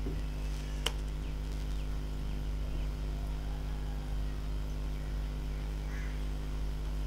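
Steady low electrical hum in the recording, with one sharp click about a second in.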